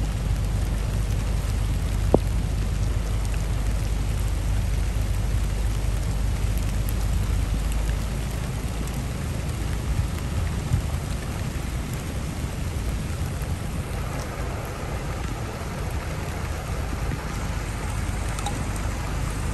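Steady rain falling, an even hiss with a low rumble under it that eases about eight seconds in. There is a single sharp click about two seconds in.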